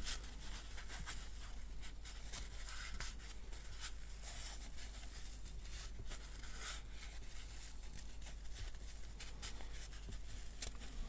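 Paper kitchen towel rustling and rubbing between the hands, in many short scratchy brushes, as fingers are dried and a vape tank part is wiped. A faint steady low hum runs underneath.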